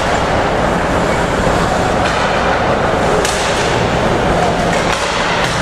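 Ice hockey game sound in an arena: a steady noisy wash from skates on the ice and the rink, with a sharp click about three seconds in, such as a stick hitting the puck.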